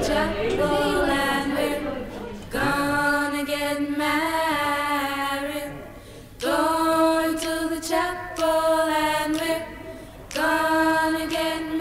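Slow vocal music: a voice singing long held notes in phrases of a few seconds each, with short dips between the phrases.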